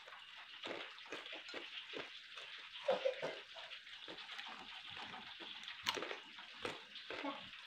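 Wet slurping, sucking and lip-smacking of a person eating by hand, sucking the meat out of tutut freshwater snail shells, with many short wet clicks and one sharp click about six seconds in.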